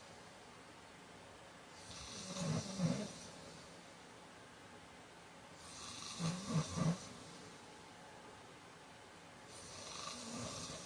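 A man snoring in his sleep: three snores about four seconds apart, the middle one breaking into three quick pulses.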